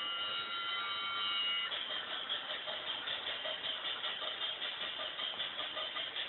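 Toy electric train's built-in sound effects: a held whistle of several steady tones, breaking off about a second and a half in into a rhythmic chugging hiss of about three beats a second.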